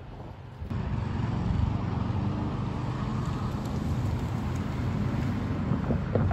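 Train running past with a steady, loud rumble that starts abruptly less than a second in.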